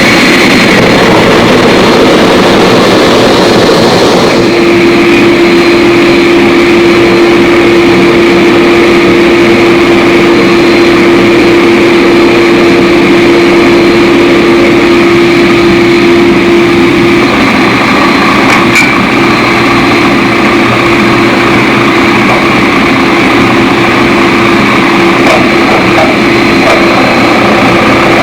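Forge running: a loud, steady rush of burner and blower noise with a constant hum through it.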